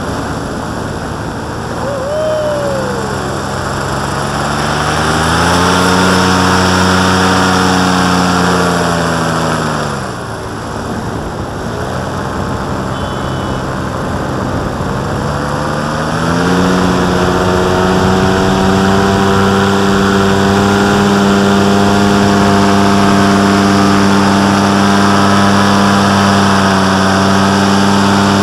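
Tandem paramotor's engine and propeller running in flight, over a rush of air. The engine climbs in pitch about five seconds in, eases off sharply around ten seconds, then throttles up again at about seventeen seconds and holds a steady pitch.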